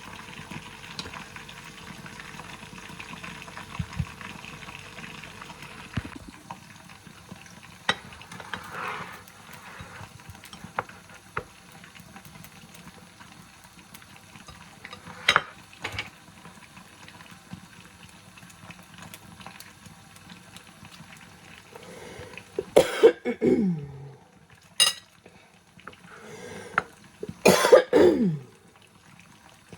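A person coughing twice, short loud coughs whose pitch drops away, the second a few seconds after the first near the end, with a few light clicks and knocks in between.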